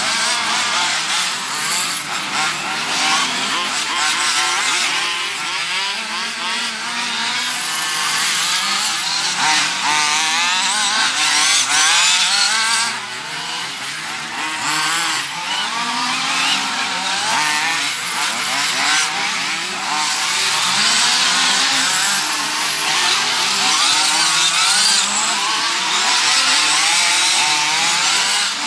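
Several RC off-road racing buggies' small engines running at once, each revving up and down in a high, buzzing whine as the cars race around the track.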